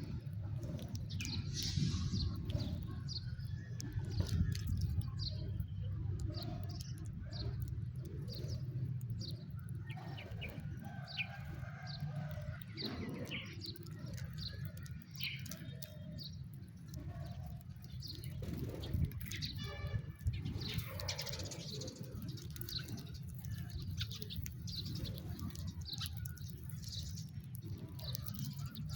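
House sparrows chirping, many short repeated chirps from several birds throughout, with one quick rattling run of notes about two-thirds of the way through, over a steady low background rumble.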